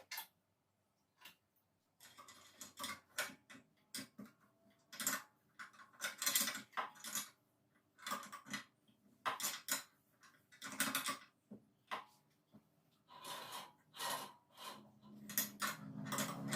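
Irregular metal clicks, taps and clatter from handling the steel parts of a bandsaw during a blade change. The clatter starts about two seconds in and becomes denser near the end.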